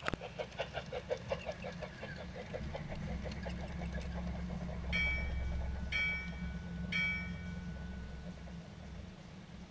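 Garden-railway model train rolling along its track, heard from on board: a steady low motor hum with quick, regular clicking of wheels over the rail joints that fades out after about three seconds. Near the middle, three short high-pitched tones sound about a second apart.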